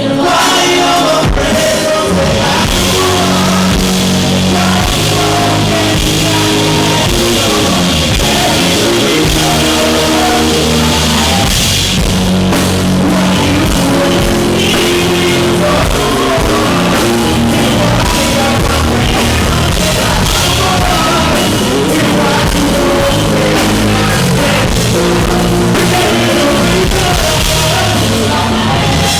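A live band playing loud, with drums and a bass line, heard through an overloaded recording microphone that makes it harsh and distorted.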